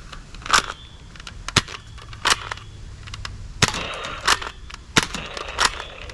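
Toy gun firing: about seven sharp, cap-gun-like cracks, irregularly spaced less than a second to about a second and a half apart.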